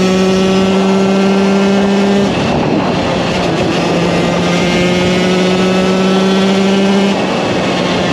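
KTM 125 EXC two-stroke single-cylinder engine running under load, its pitch held high and climbing slowly. The steady note breaks off about two seconds in, picks up again a second or two later, and dips briefly near the end.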